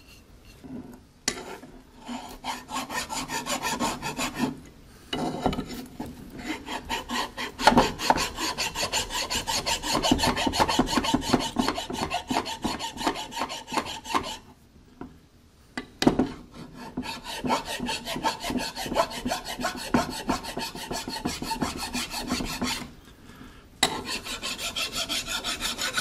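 Hand file rasping across the metal gasket flange of a Ferguson TO-20 water pump housing, dressing off a burr. The filing comes in long runs of quick back-and-forth strokes, with three short pauses.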